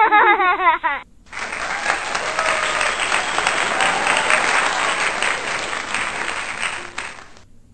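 A short high-pitched voice in the first second, then applause for about six seconds that fades and cuts off near the end.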